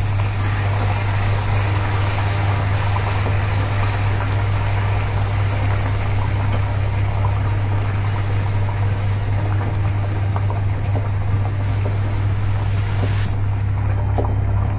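Warm water poured from a jug into hot, frying masala paste in a kadai and stirred in with a wooden spatula: a steady splashing hiss over a constant low hum, the hiss thinning near the end.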